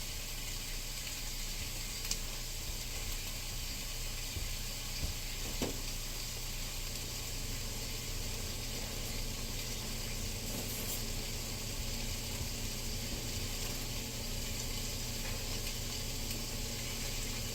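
Potato pieces sizzling steadily as they fry in a pan, with a constant low hum underneath and a couple of faint clicks.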